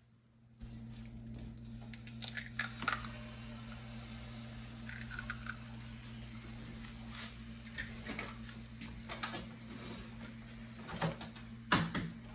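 An egg frying in canola oil in a nonstick pan, a faint sizzle over a steady low hum, with a few light clicks and taps as the pan and egg are handled and a louder knock near the end.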